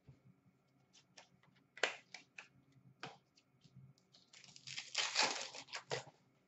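Hockey trading card packs being opened and the cards handled: scattered flicks and rustles, a sharp rip about two seconds in, and a longer papery rustling stretch from about four and a half to six seconds.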